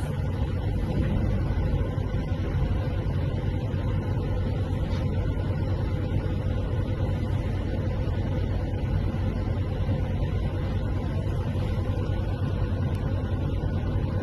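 Steady low rumble of a car heard from inside its cabin, engine and road noise with no sharp events.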